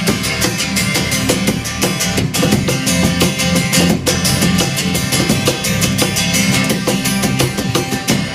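Instrumental break of a live acoustic rock band: strummed guitars over bass with a steady beat, no singing.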